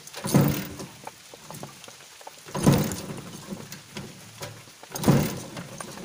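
Kawasaki Barako's single-cylinder engine being cranked three times, each a short burst about two seconds apart, without catching. The engine is slow to start after sitting unused for about a week.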